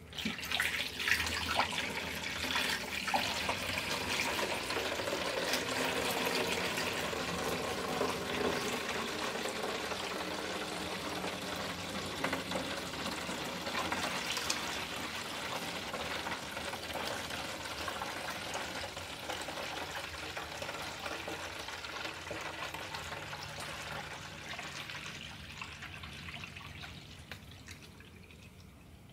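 Old engine coolant pouring from a drain pan through a funnel into a plastic gallon jug. The liquid splashes steadily into the jug, then thins out and fades over the last several seconds as the pan empties.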